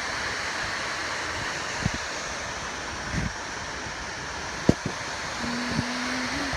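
Waterfall in a gorge, a steady rush of falling water, with a couple of faint knocks.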